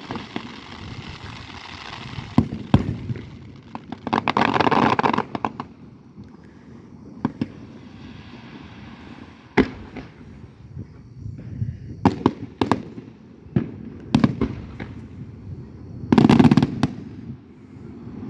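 Fireworks show: aerial shells bursting with sharp bangs scattered throughout, and dense crackling bursts about four seconds in and again near the end.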